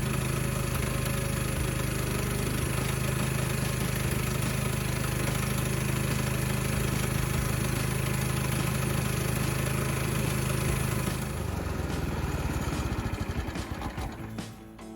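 A motor running steadily, then shutting off about eleven seconds in and winding down with a slowing pulse.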